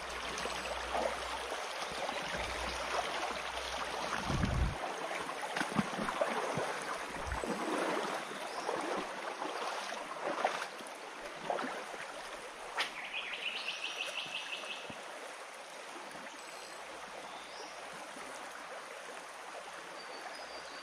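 Shallow stream running over logs and stones, a steady rush of water. In the first half there are scattered knocks and low thumps of someone moving along the bank. About 13 seconds in, a bird calls with a quick run of short repeated high notes.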